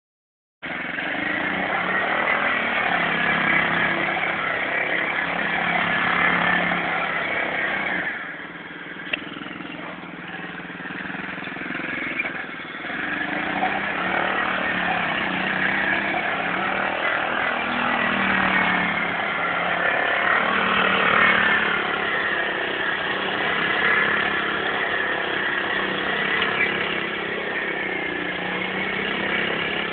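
Small youth ATV engine running and revving as it circles in the dirt, its pitch rising and falling. About eight seconds in it drops quieter for several seconds, with a single click, then picks back up.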